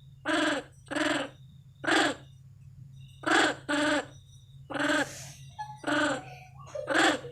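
Monkey calls: about eight short, separate pitched calls, roughly one a second, over a steady low hum.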